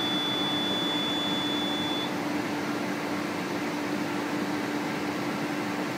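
Laser cutter's extraction fan and air system running with a steady hum. A long, high beep from the machine stops about two seconds in.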